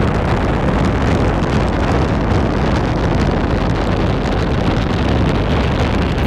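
Rocket-launch roar sound effect: a loud, steady rushing noise with no clear pitch.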